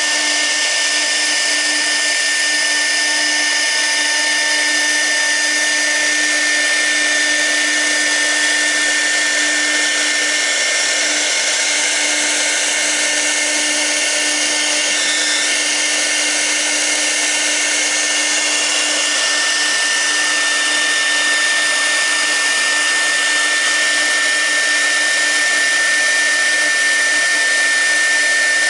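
6 kW air-cooled spindle of a CNC router running a V-bit carving toolpath: a steady high-pitched whine over a hiss, with a fainter low hum underneath.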